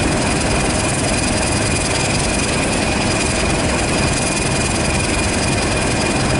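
British Rail Class 31 diesel locomotive's English Electric V12 engine running steadily while the locomotive stands at the platform, a deep steady rumble with a thin high whine held over it.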